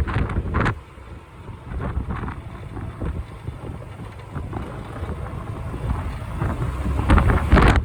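Typhoon wind buffeting the microphone of a moving motorcycle, a low rumbling roar with the bike's running noise beneath it. It dips about a second in and swells to its loudest gust near the end.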